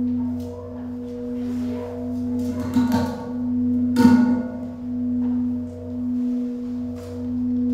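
Metal singing bowl ringing in a sustained tone that swells and fades about once a second, over a steady low hum. About three and four seconds in, two sharp metallic strikes ring out over it.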